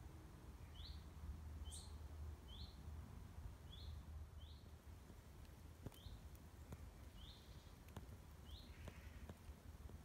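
A small bird calling, a short rising chirp repeated about once a second, faint over a low rumble.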